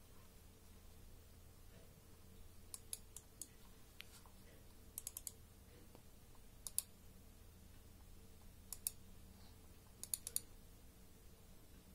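SteelSeries Sensei RAW mouse buttons clicking in short runs of two to four quick, sharp clicks, with five runs spread a second or two apart.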